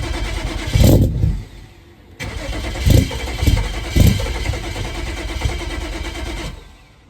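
BMW 335i's turbocharged inline-six being cranked on a cold start: the starter turns it over in two attempts, with a few loud surges where it briefly fires, but it does not keep running. The engine is struggling to start in the cold, which the owner puts down to it being too cold.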